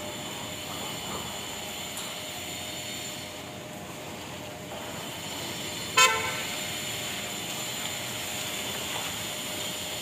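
Remote-controlled iron folding sliding gate closing: a steady motor hum with a faint whine as the panels roll along the floor track. About six seconds in, a single brief, loud toot cuts through.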